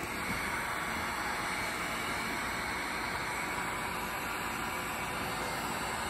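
Handheld electric heat gun running steadily, its fan blowing a constant hiss of hot air onto a headlight's lens seam to soften it for reassembly.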